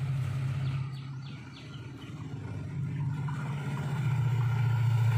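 Low, steady engine drone of an approaching WDP4 diesel locomotive, growing louder over the last couple of seconds as it nears.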